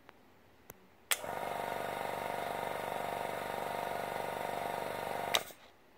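Airbrush compressor's rocker switch clicking twice without the motor starting, then with a sharp click the compressor motor comes on about a second in and runs steadily for about four seconds before cutting off with a click near the end. The switch is faulty.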